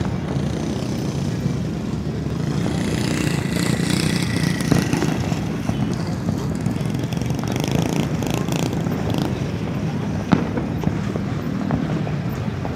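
Fireworks crackling and popping in the air over a steady low rumble, with the crackle thickest in the middle and one sharper bang about ten seconds in.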